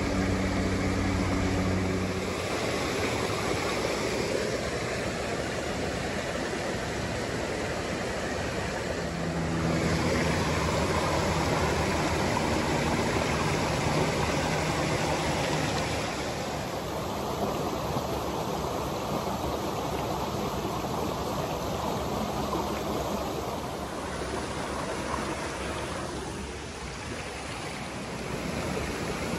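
A small rocky stream rushing and splashing over stones, heard close to the water. A low steady hum rises over it for the first two seconds and again from about ten to fourteen seconds in.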